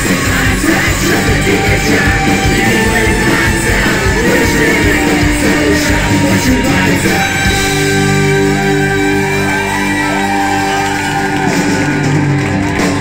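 Live rock band with a brass section of trumpet, trombone and tuba playing, with a man and a woman singing and shouting. About halfway through the drums drop out, leaving held chords under the voices.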